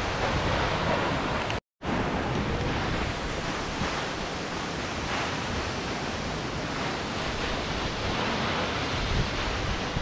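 Waterfall pouring steadily, a constant rush of falling water. The sound drops out completely for a moment a little under two seconds in.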